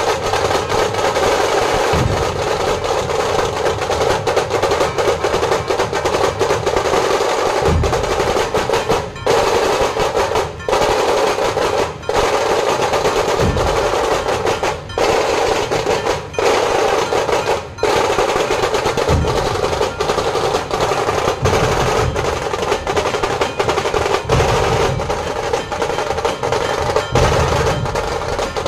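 Dhol-tasha ensemble playing: the tasha drums keep up a continuous rapid stick roll, with deep dhol strokes every few seconds. The roll breaks off for an instant several times midway.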